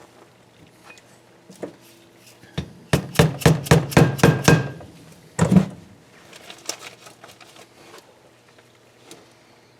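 A quick run of about ten light metal taps in under two seconds, then one more a second later: valve stem seals being tapped down onto the valve guides of a KA24DE cylinder head.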